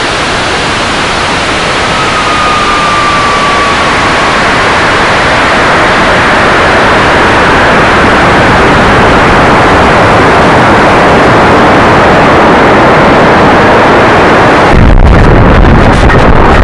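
Loud rushing airflow over a high-power rocket's onboard camera in flight, growing gradually louder. About 15 seconds in it turns into a heavier, deeper buffeting.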